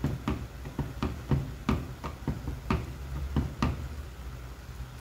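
Silicone spatula knocking and scraping against the sides of a metal pot while stirring rice in water: a quick, irregular series of sharp taps through the first three and a half seconds, then quieter.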